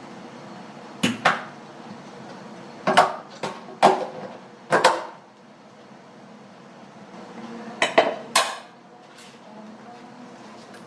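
Kitchen cookware and utensils clattering: a string of sharp knocks with short ringing, in a pair about a second in, a cluster of four from about 3 to 5 seconds, and another pair near 8 seconds.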